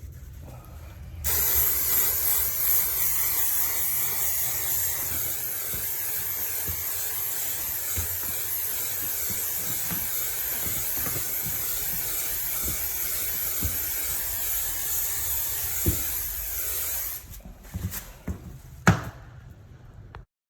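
Aerosol can of 3M multi-purpose spray adhesive spraying in one long continuous hiss of about sixteen seconds, starting about a second in and cutting off near the end. A few sharp knocks follow after it stops.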